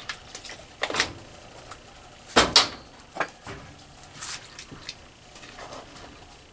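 Wooden spoon knocking and scraping against a Bayou Classic 2-quart cast iron dutch oven while stirring thick sausage gravy, with a few sharp knocks, the loudest two close together about two and a half seconds in.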